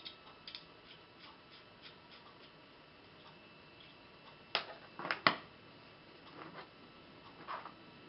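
Small metal hardware clicking and ticking as nuts and washers are worked onto a threaded steel rod, with a quick run of three louder clicks about five seconds in.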